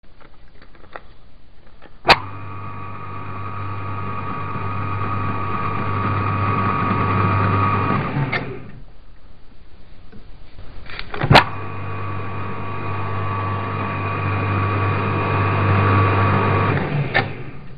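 Hobbymat hobby lathe running under power through two threading passes, one of them with the chuck reversed for the back-feed. Each run starts with a sharp click, keeps a steady hum with a higher whine and grows louder over about six seconds. Between the runs a quieter, rhythmic hum carries on.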